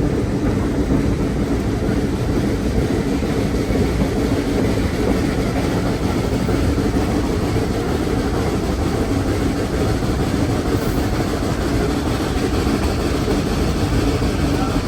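Steady rumbling running noise of a train heard from on board a passenger car as it climbs: car wheels on the rails and the locomotive working, with no breaks.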